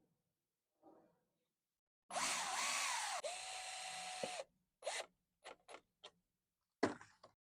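Power drill driving screws into pallet wood: one run of about two seconds whose pitch rises and falls, then holds steady before stopping. Four short trigger bursts follow.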